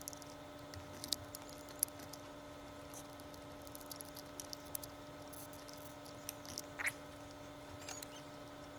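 Faint scattered clicks and small handling ticks over a steady low electrical hum, with one short squeak about seven seconds in.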